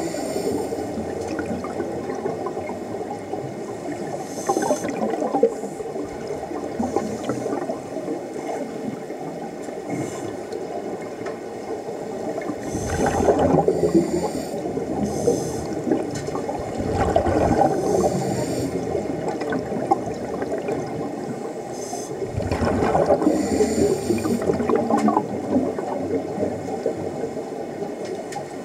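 Scuba diver breathing underwater through a regulator, heard on an underwater microphone: a steady watery hiss with louder rushes of exhaled bubbles several times.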